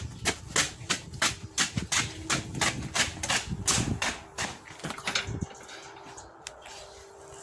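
Hurried footsteps, about three a second, stopping about five seconds in, with a faint steady tone underneath.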